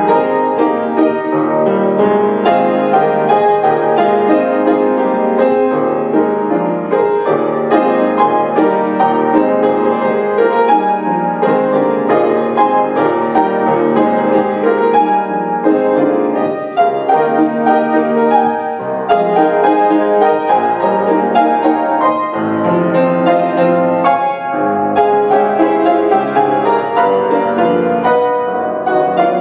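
Solo grand piano playing a fast, dense passage of many quick notes.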